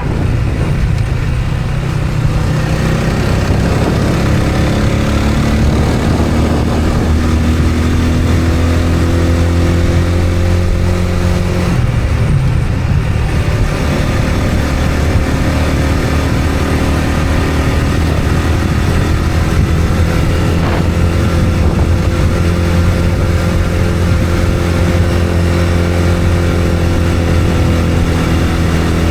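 A road vehicle's engine running steadily while being driven, a continuous low drone that changes pitch briefly about twelve seconds in.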